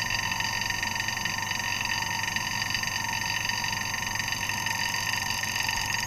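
Small electric vacuum pump running steadily, with a steady hum and whine, while its suction hose to the leaking discharge tube is pinched by hand to throttle the vacuum.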